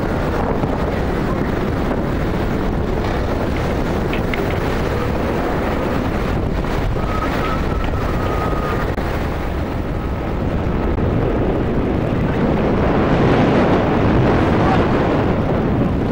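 Strong wind buffeting the microphone over the rush of heavy, breaking seas aboard a lifeboat, steady and growing louder in the second half.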